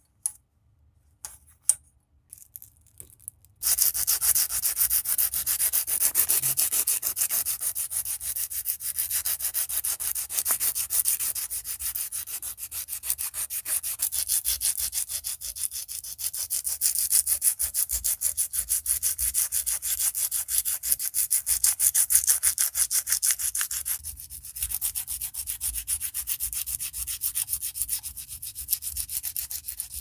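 A few light clicks of small wooden knife handle scales set down on a stone slab, then, from about four seconds in, hand-sanding a wooden scale with a folded piece of sandpaper: fast, steady back-and-forth scratching that grows a little softer near the end.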